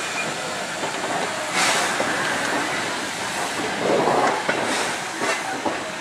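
Steam locomotive and its wooden carriages passing close by: steady steam hiss with the clatter of wheels over the rail joints, and a few louder puffs or knocks along the way.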